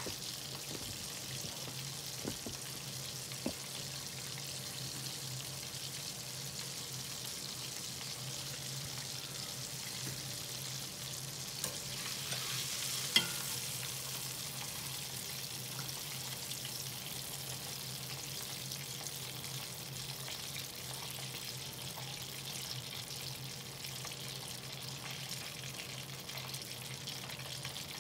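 Hot oil sizzling steadily as battered chicken tenders deep-fry in a stainless steel pot, with a steady low hum underneath. A few light clicks stand out, the sharpest about 13 seconds in.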